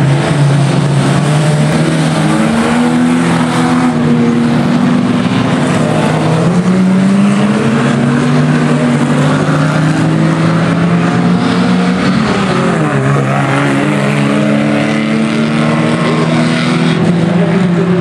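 A pack of banger racing cars running hard around the oval, several engines at once, their notes rising and falling as they rev and pass.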